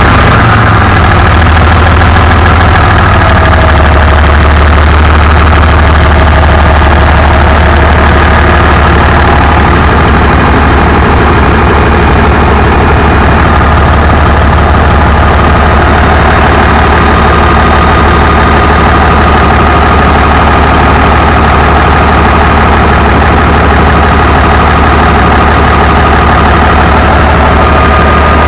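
Caterpillar 3412 V12 diesel engine running loud and steady. Its speed eases slightly lower in the first few seconds, then holds even.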